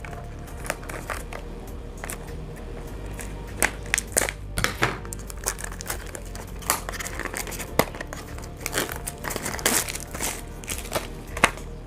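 Packaging on a small earbud box being cut, torn and crinkled open by hand: irregular crackles and rustles with some sharper snaps.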